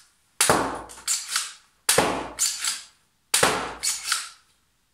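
3D-printed blaster pistol fired three times, about a second and a half apart, each sharp crack followed by two quick plastic clacks as it is primed again.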